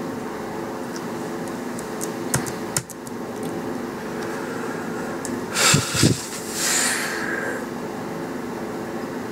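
Steady low machine hum, with a few sharp clicks about two to three seconds in and a brief louder noise just past the middle.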